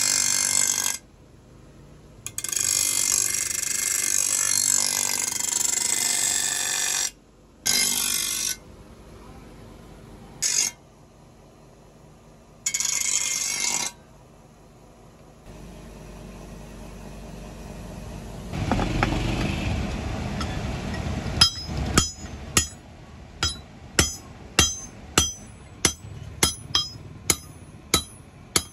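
Steel kasi (spade) blade being ground on a motor-driven grinding wheel in several bursts of hiss, then a stretch of low rumble. From about two-thirds of the way in, a hammer strikes the blade on a steel anvil about twice a second, each blow ringing.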